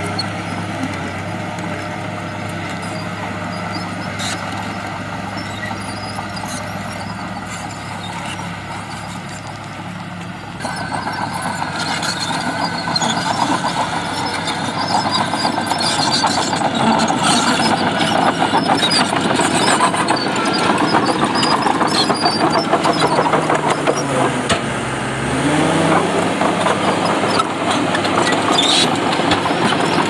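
Diesel engines of a Shantui DH17 crawler bulldozer and a dump truck running together. About ten seconds in the sound grows louder with a dense clatter, and near the end one engine's pitch dips and comes back up.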